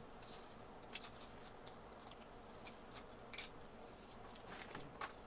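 Wooden popsicle sticks being picked through and handled, giving a string of faint, irregular light clicks.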